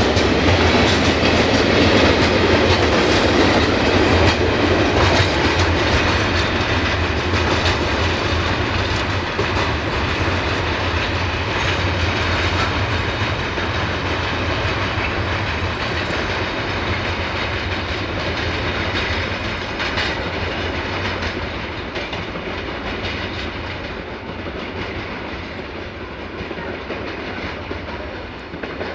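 Freight train wagons rolling past, their wheels clicking over the rail joints, then a steady fading rumble as the train pulls away down the line.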